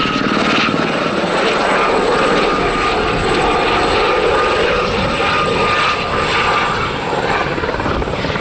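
Westland Gazelle helicopter flying a display pass: a steady, fast rotor chop with a thin high whine from its turbine, easing slightly near the end as it moves away.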